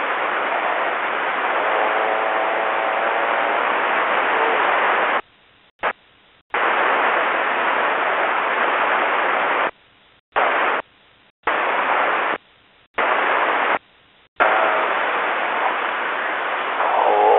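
Radio scanner's static hiss as the squelch opens on weak transmissions on a military UHF air-band frequency with no readable voice, cutting off abruptly into silence about six times and coming straight back each time.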